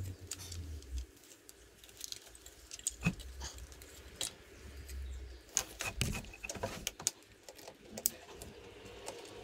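Light, scattered clicks, taps and rattles of hands and a small tool working among a motorcycle's wiring connectors and hoses.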